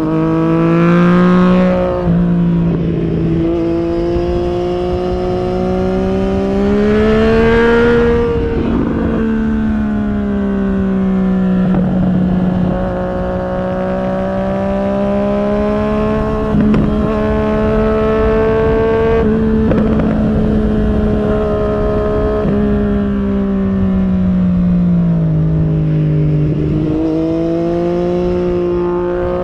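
Yamaha MT-09 SP's three-cylinder engine through an Akrapovic carbon racing exhaust, under way and changing speed: the pitch climbs and steps down at gear changes in the first ten seconds, holds fairly steady through the middle, sinks as the bike slows, then jumps and climbs again near the end.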